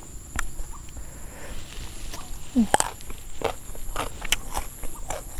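A person chewing food close to the microphone: a scatter of sharp crunches and mouth clicks, with a brief hum about two and a half seconds in.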